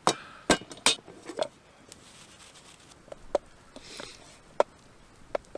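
A scattering of sharp, light clicks and taps at irregular intervals, several in the first second and a few more later, with a short soft rustle about four seconds in.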